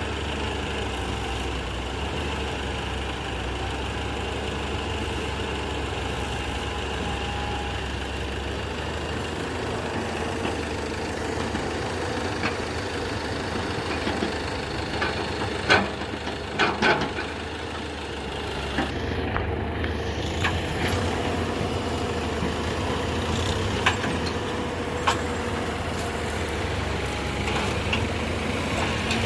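Heavy diesel engines of an excavator and tractors running steadily. A few sharp knocks come around the middle, and single ones come later.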